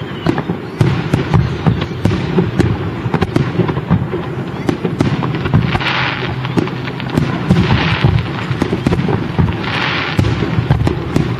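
Aerial fireworks shells bursting in quick succession: a dense run of bangs and booms over a continuous low rumble. Short hissing bursts come about every two seconds in the second half.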